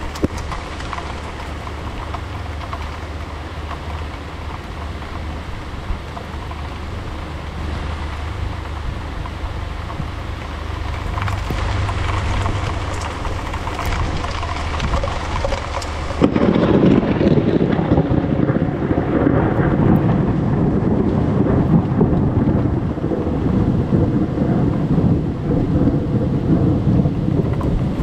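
Heavy rain hissing steadily and building. A little past halfway, thunder breaks in suddenly and rolls on in a loud, deep rumble over the downpour.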